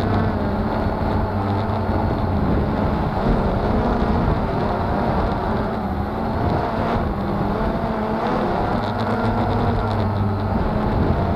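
Cheerson CX-20 quadcopter's four brushless motors and propellers whirring steadily, heard close up from its onboard camera, the pitch wavering up and down as the motors change speed in flight.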